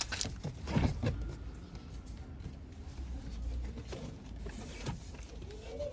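A few light clicks and knocks of parts being handled during the door reassembly, over a low rumble; the loudest comes just under a second in.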